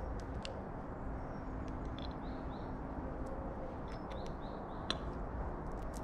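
Steady outdoor background rumble with faint, short chirps of small birds now and then, and a few sharp taps, the loudest about five seconds in, as a carrion crow's beak strikes the table while it picks up shrimp.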